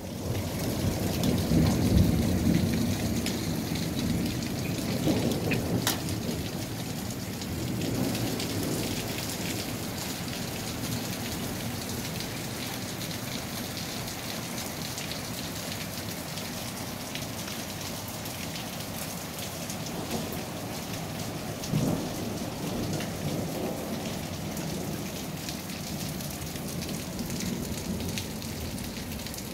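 Hailstorm: hail and rain pattering steadily on the ground and surrounding surfaces, with low rumbling swells in the first few seconds and again about two-thirds of the way through.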